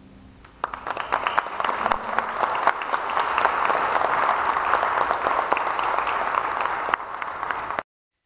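Audience applauding: clapping breaks out about half a second in and runs on steadily, then cuts off abruptly near the end.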